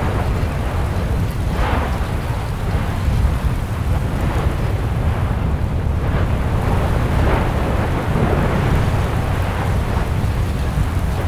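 Erupting volcano: a continuous deep rumble with hissing surges swelling up every second or two, as lava churns in the crater of a spatter cone.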